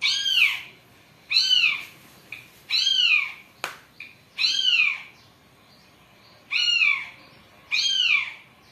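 A cat meowing six times in a row: short, high meows, each rising then falling in pitch, about one to two seconds apart. A single sharp click comes between the third and fourth meow.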